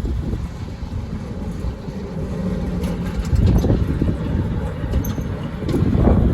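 7.25-inch gauge miniature 'Tin Turtle' locomotive running under power, a steady low rumble that swells a little about three and a half seconds in and again near the end.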